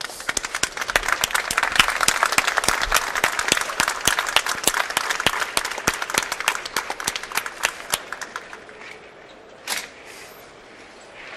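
Crowd applauding, loudest over the first eight seconds or so and then dying away; a single sharp knock sounds near the end.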